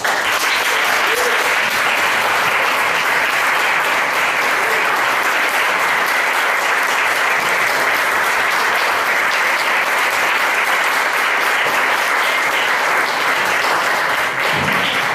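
Audience applauding: dense, steady clapping that starts abruptly and thins out near the end.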